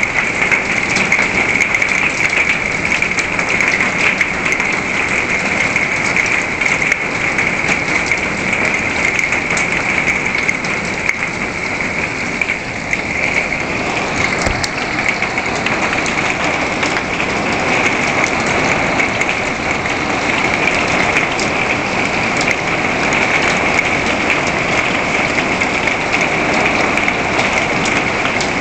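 Hailstorm pelting a wooden deck: a steady hiss of heavy rain with many small sharp ticks of hailstones striking.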